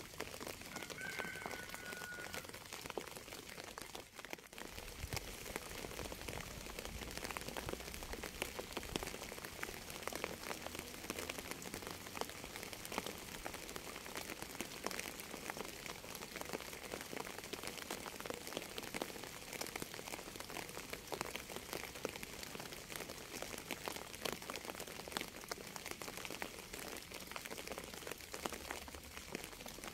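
Steady rain falling, with dense patter of individual drops hitting a surface.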